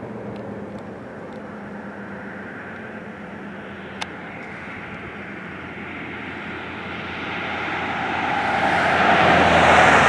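A car approaching on the highway, its tyre and engine noise growing steadily louder until it passes close near the end. There is one sharp click about four seconds in.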